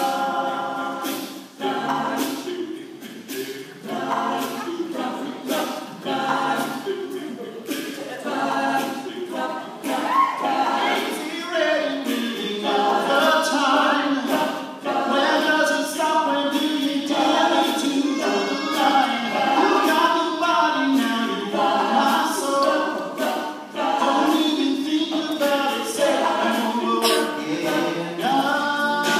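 A male a cappella group singing in close harmony with no instruments, over a steady percussive beat.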